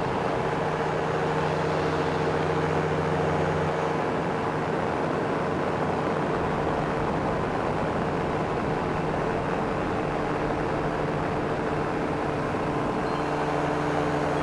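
Ultralight trike's engine droning steadily in flight, mixed with wind noise; its tone shifts slightly about four seconds in and again near the end.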